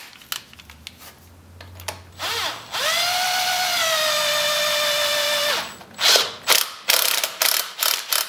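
Cordless drill turning a homemade threaded-rod tool into an ATV's CVT secondary clutch to open it and slacken the drive belt. The motor whine rises as it spins up, runs steadily for about three seconds and stops, and a burst of clicks and knocks follows.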